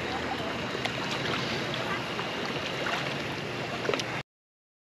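Pool water churning and splashing, with small drips and splashes over a steady rush; it cuts off abruptly about four seconds in.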